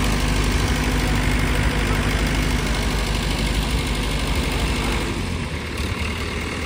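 Heavy diesel engine idling steadily with a low hum, its tone shifting slightly about five seconds in.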